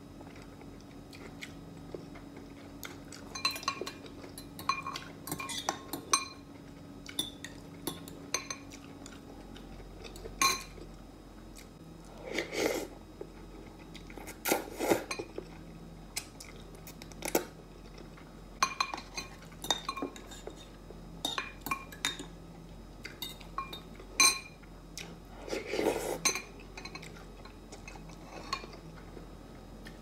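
A metal fork and spoon clinking and scraping against a glass bowl of noodle soup in many short, sharp clicks, with a few longer slurps of noodles.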